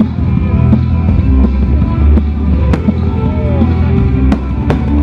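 Loud music with a heavy bass beat and firework explosions over it: three sharp bangs in the second half.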